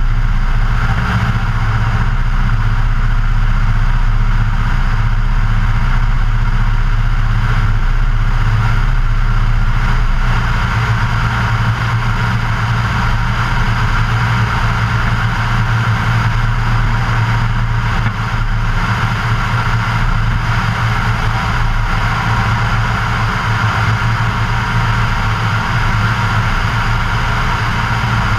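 Luscombe light aircraft's piston engine and propeller running steadily in cruise flight, with wind rushing over the externally mounted microphone. The engine note drops a little about ten seconds in and then holds steady.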